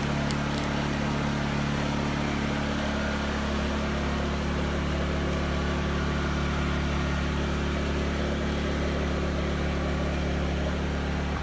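Steady low mechanical hum of a running motor or machine, unchanging throughout, with a couple of faint clicks at the very start.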